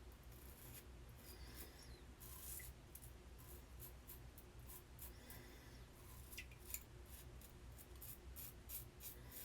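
Faint, quick scraping strokes of a Rockwell 2C safety razor cutting through lathered stubble, a run of short strokes that comes thickest in the second half.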